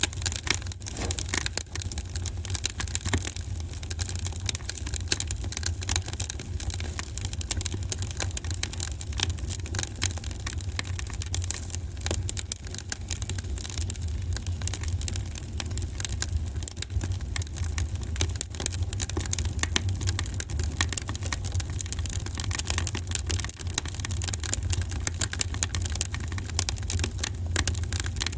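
Wood fire burning in a fireplace: dense, steady crackling and popping over a low rumble of the flames.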